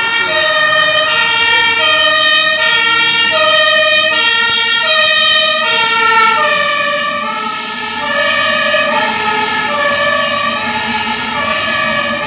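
German fire engines' two-tone sirens (Martinshorn) sounding, a high and a low note alternating about every three-quarters of a second. About six seconds in, the pitch of the pair shifts as a truck passes, with the trucks' engine rumble underneath.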